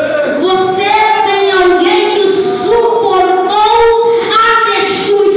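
A child's voice singing into a microphone, long held notes gliding slowly from one pitch to the next.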